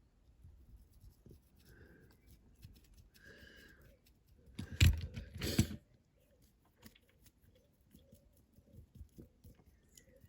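Small handling noises at a hobby bench: light clicks and taps, with two short, louder rustling or scraping bursts about five seconds in.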